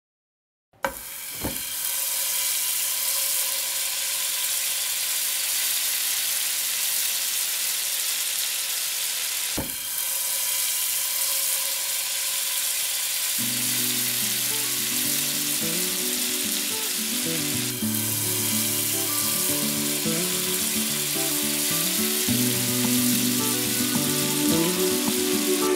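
Battered zucchini slices deep-frying in hot oil: a steady crackling sizzle that starts abruptly about a second in. Background music comes in about halfway through.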